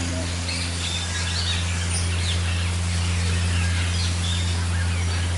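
Many birds chirping and calling in short, scattered notes over a steady low hum.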